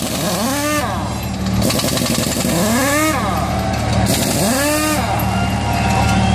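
Pneumatic impact wrench on a race truck's front wheel, run in three bursts. Each burst is a hiss of air with a whine that rises in pitch as the tool spins up, over a steady low hum.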